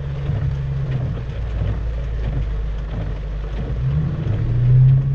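2004 Mustang GT's 4.6-litre two-valve V8, heard from inside the cabin, running low and then revving up and holding higher about four seconds in as the learner lets the clutch out to pull away. Rain pattering on the car underneath.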